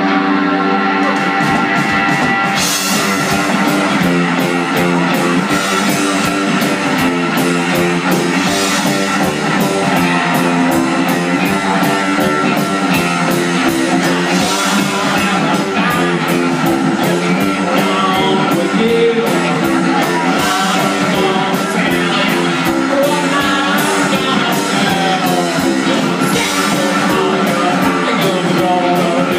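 Rock music: electric guitar and drum kit playing, with some singing and cymbal crashes every few seconds.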